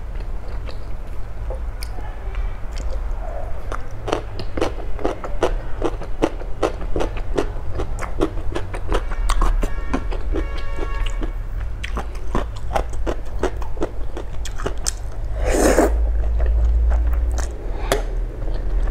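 Close-miked chewing of crisp pickled yellow radish: a long run of sharp, crunchy bites and chews. Near the end comes a louder slurp of noodles.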